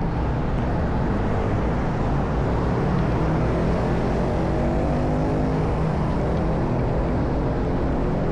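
Motorcycle engine running at road speed with wind rushing over the microphone; the engine note rises and falls a few seconds in as the throttle changes.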